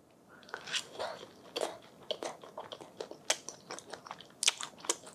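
Close-up chewing of rolled rice paper snacks: a run of irregular short mouth clicks and smacks.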